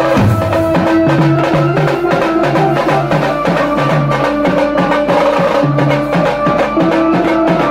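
Tasha party drumming: large brass-shelled bass drums and small tasha drums beaten together in a fast, steady rhythm, with a repeating low pitched pattern under the strokes.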